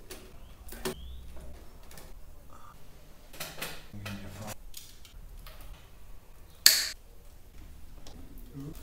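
Scattered light clicks and knocks of hand work on surface-mounted electrical conduit and ceiling light fittings, with one sharp, loud snap about two-thirds of the way through.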